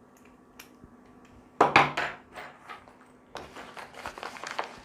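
A small hard part of a lockpicking practice kit knocks sharply onto a surface with a brief ring, followed by a few light clicks. From about three and a half seconds in, plastic packaging crinkles as it is handled and opened.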